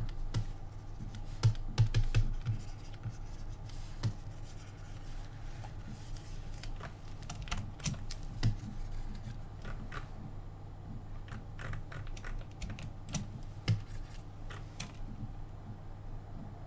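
Irregular clicks, taps and light scratching of computer input devices being worked during digital sculpting, over a low steady hum.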